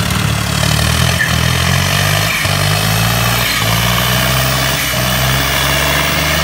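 Diesel tractor engines of a Ford 3600 and a Sonalika running hard under full load as they pull against each other in a tug-of-war. The engine note is steady and loud, and its pitch wavers briefly a few times.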